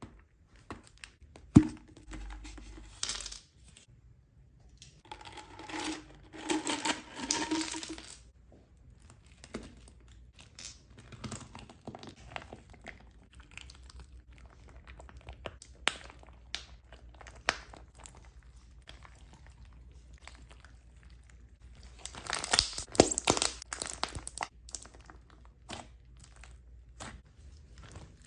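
Slime being squeezed and pulled by hand: sticky crackling and popping clicks, in denser spells a few times, with single sharp clicks between.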